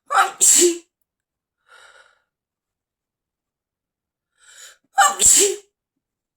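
A person sneezing twice, about five seconds apart, each a sharp "ah-choo" with a short voiced "ah" running straight into a loud, hissing burst. A quick breath is drawn in just before the second sneeze.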